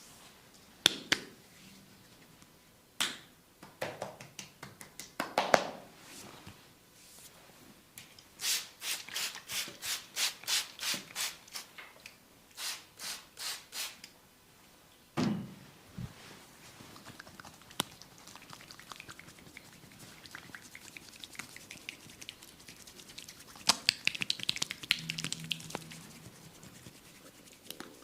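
Percussive hand massage on skin: a run of evenly spaced slaps, about three a second, in two sets, with scattered sharp clicks before them and one low thud after. Near the end comes a patch of fast fine ticks.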